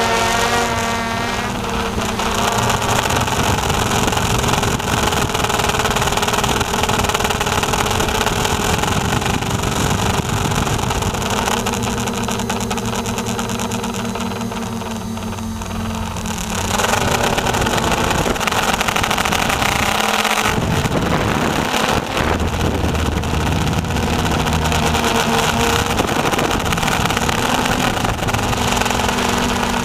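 Quadcopter's four electric motors and propellers buzzing loud and close, heard from the camera mounted on the drone in flight. The pitch shifts up and down with the throttle, and the sound dips a little near the middle before coming back up.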